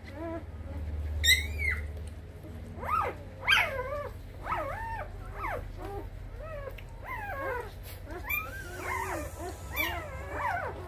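Newborn Lycan Shepherd puppies crying: a continual run of short, squeaky whimpers that rise and fall in pitch, with two louder, sharper squeals about a second and three and a half seconds in, as a pup is licked and nosed by the adult dog.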